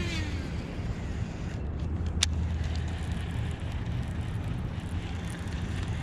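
Steady low hum of a bass boat's bow-mounted electric trolling motor, with one sharp click about two seconds in.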